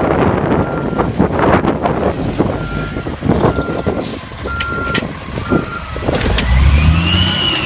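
Automated side-loader garbage truck's diesel engine running as it pulls up to the carts, with a short warning beep repeating about once a second. Near the end the engine revs up with a whine that rises and falls as the hydraulic lift arm reaches out, and gusts of wind buffet the microphone throughout.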